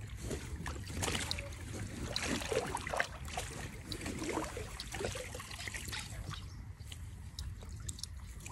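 Hooked carp thrashing and swirling at the surface close to the bank, water splashing and slopping irregularly, busiest in the first half. A steady low rumble of wind on the microphone underneath.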